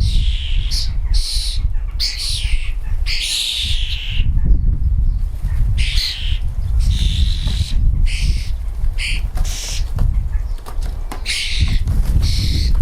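Garden birds calling in short, harsh squawks and chirps, one burst after another, over a steady low rumble.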